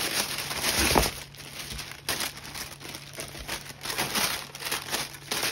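White tissue paper in a cardboard shoebox rustling and crinkling as hands pull it back and unfold it, with a few louder crinkles among the steady rustle.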